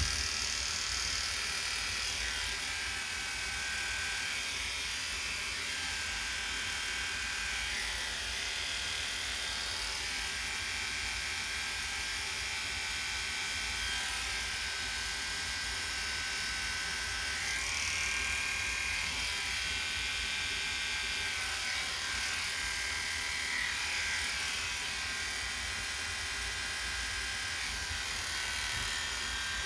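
Electric dog-grooming clippers fitted with a #40 blade, running steadily while reverse-clipping the hair close on a dog's ear; the buzz shifts a little now and then as the blade moves through the hair.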